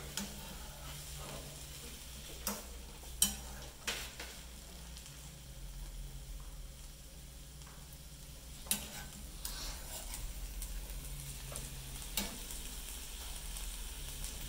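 Food frying in a hot pan, sizzling steadily, with about five sharp knocks of a utensil against the pan.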